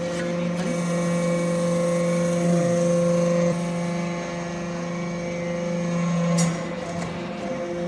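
Hydraulic metal-briquetting press running: a steady, tonal machine hum from its hydraulic pump and motor. The tone changes about three and a half seconds in, and there is a short click with another change about six and a half seconds in.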